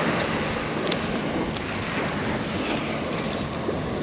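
Steady surf and wind noise on the microphone, with a few light clicks.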